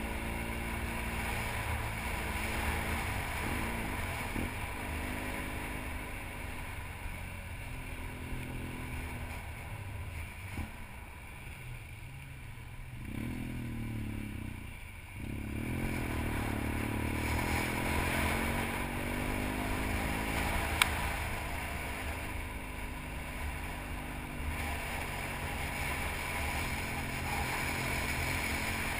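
Adventure motorcycle engine running on a gravel climb, its pitch rising and falling as the throttle is worked. It eases off for a few seconds about halfway through, then pulls again. A single sharp tick comes about two-thirds of the way in.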